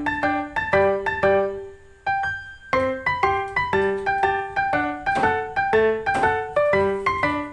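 Background piano music: a light melody of quick single notes, about three a second, thinning briefly about two seconds in.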